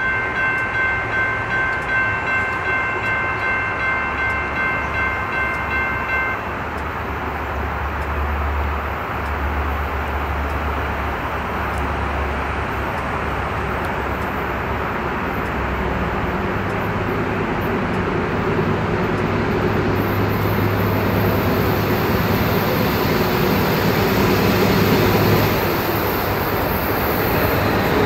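Grade-crossing bell ringing at about two strokes a second, then stopping about six seconds in. Through and after it, the rumble of approaching CSX diesel locomotives grows slowly louder as the eastbound autorack train nears the crossing, with no horn.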